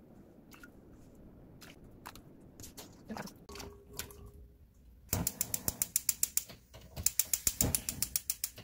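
Gas hob's electric spark igniter clicking rapidly, about a dozen clicks a second, in two bursts of about a second and a half each while the burner is lit. Before that, a few soft knocks as rice cakes are tipped into a pot of water.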